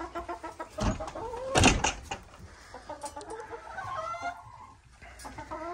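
Hens clucking in a coop, with a couple of sharp knocks about a second and a half in.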